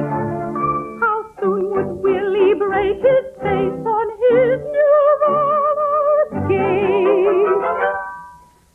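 Operetta singing with orchestra: phrases that end on long held notes with a wide vibrato, fading out just before the end.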